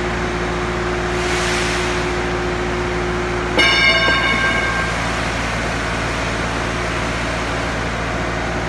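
A steady mechanical hum, with one ringing metallic clang about three and a half seconds in that dies away over a second or so; a higher hum note stops at the moment of the clang.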